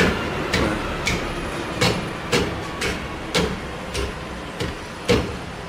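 Hammer taps on metal, about ten light knocks at roughly half-second intervals, as a rear wheel hub or brake drum part is knocked into place.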